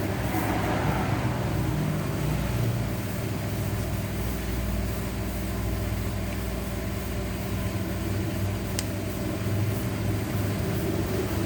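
Steady low mechanical hum, with a single short sharp click about nine seconds in.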